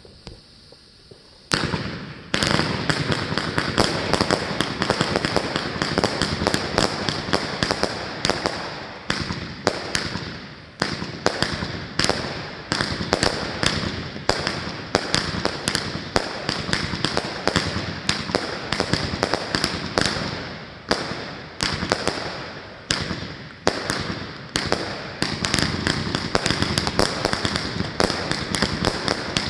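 Consumer firework cake firing a fast, continuous run of shots and bursts. It starts suddenly about a second and a half in and keeps going without a break.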